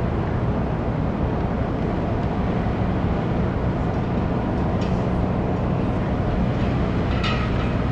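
Steady low drone of a large cruise ship's machinery during berthing, with a short high-pitched sound near the end.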